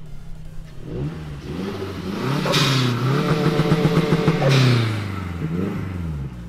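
Mazda 3 MPS's turbocharged 2.3-litre four-cylinder engine revved hard several times, its pitch climbing and falling, loudest in the middle with a long sweep up and back down, then a few shorter blips near the end.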